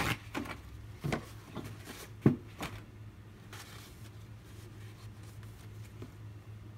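Light knocks and clicks of a knife and sharpening gear being handled, about half a dozen in the first three seconds, the loudest a little after two seconds in. A steady low hum carries on after them.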